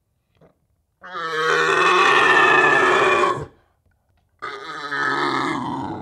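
Red deer stag's rutting roar, given twice: a long roar of about two and a half seconds, then after a short pause a second roar that starts strong and trails off.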